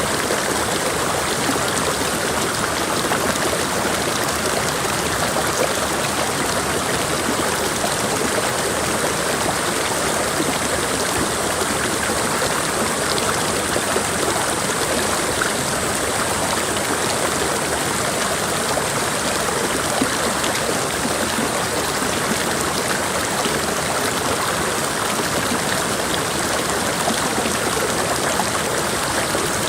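Creek water running steadily over rocks, an even rushing and splashing that holds the same level throughout.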